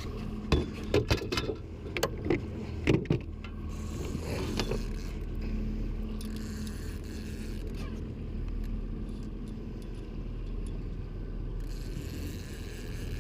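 Boat motor running steadily under way, with a quick run of sharp knocks and clatter in the first few seconds.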